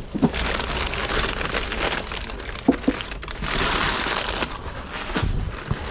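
Rustling and crinkling of packing material as items are handled in a box, with a few light knocks and a louder burst of crinkling about halfway through.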